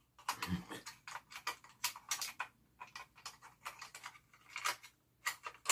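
Plastic body of a Polaroid Land Camera Swinger Model 20 clicking and tapping irregularly under the fingers as it is handled and opened, several small clicks a second with a sharper click near the end.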